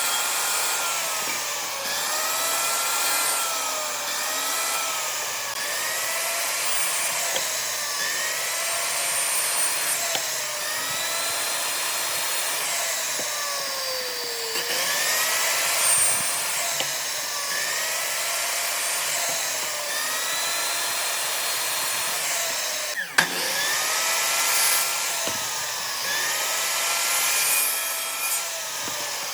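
An electric power tool working wood, its motor pitch dipping and recovering about once a second as it is pushed through repeated strokes under load. A single sharp knock cuts in about three-quarters of the way through.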